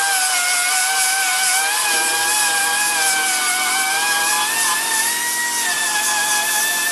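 Power grinder running on sheet metal, a steady high whine whose pitch sags and recovers as it bears on the panel, over a hiss. A lower hum joins about two seconds in.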